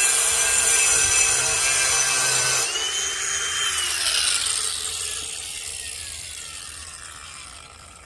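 Ryobi cordless brushless 4½-inch angle grinder with a diamond blade grinding down a raised concrete slab edge. About two and a half seconds in the grinding stops and the motor winds down with a falling whine that fades away.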